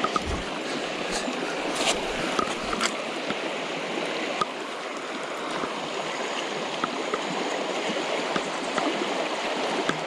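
River water flowing steadily, with a few faint brief ticks scattered through.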